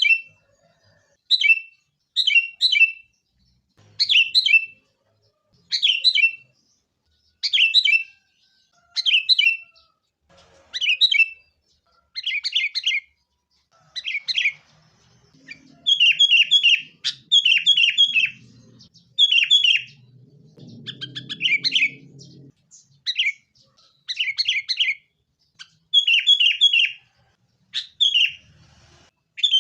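Sooty-headed bulbuls (kutilang) giving fighting calls: short clusters of two to four sharp chirping notes, repeated every second or two.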